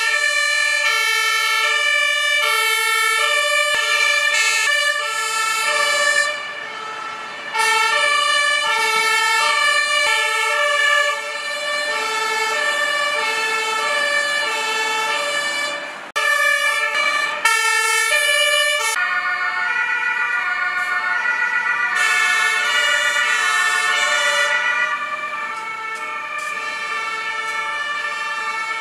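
Two-tone sirens (Martinshorn) of several fire engines and other emergency vehicles sounding at once, each stepping back and forth between a high and a low note, the sirens overlapping out of step with each other. The sound briefly thins twice, about six and sixteen seconds in.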